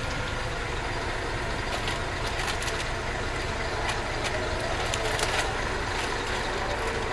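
Bus engine running steadily, heard from inside the passenger cabin, with a few light clicks and rattles.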